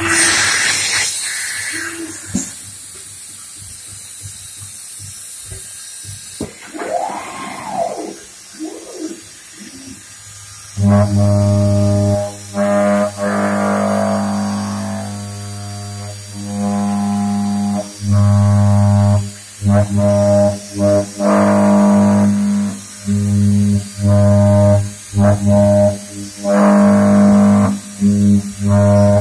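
CNC machining centre milling a metal block held in a rotary-axis chuck. A short hiss at the start, the spindle's pitch rising and falling around seven seconds in, then from about eleven seconds in a loud, steady, horn-like cutting tone that starts and stops again and again as the end mill enters and leaves the block.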